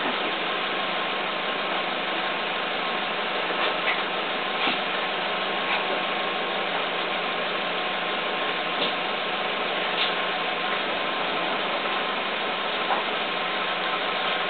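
A steady mechanical hum with hiss, with a few faint clicks.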